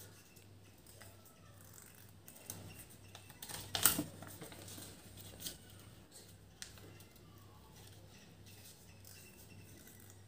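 Sheet of origami paper being folded and creased by hand: faint rustles and soft crinkles, the loudest about four seconds in.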